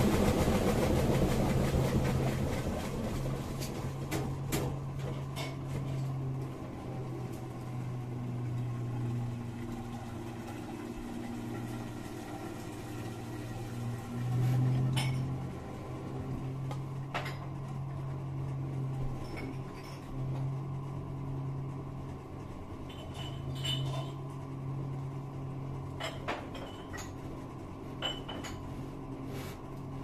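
Brandt washing machine running mid-cycle: a steady low motor hum that swells and eases every second or two, with scattered light clicks and knocks. A louder, rushing noise at the start dies away over the first few seconds.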